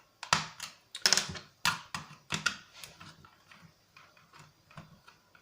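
Plastic clicks and knocks from handling a cheap RC drone remote controller: several sharp clicks in the first two and a half seconds, then fainter, scattered ticks.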